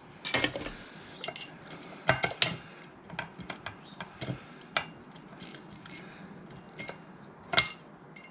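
Irregular light metallic clinks and taps, about a dozen, as a machined aluminium RF filter and loose screws are handled and lifted free of their unscrewed housing.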